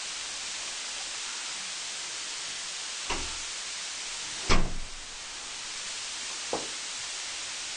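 Steady hiss with three knocks or thumps, about three seconds in, four and a half seconds in and six and a half seconds in; the middle one is the loudest.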